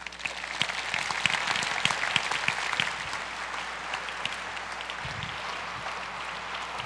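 Audience applauding: many hands clapping, starting suddenly, strongest for the first few seconds, then settling into steady clapping.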